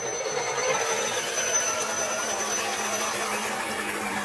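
Electric motors and gear trains of RC scale crawler trucks whining as they push through muddy water, the whine wavering in pitch over a steady wash of water noise.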